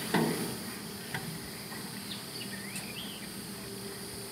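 Steady outdoor hiss with faint high chirps from wildlife, and a single short thump just after the start.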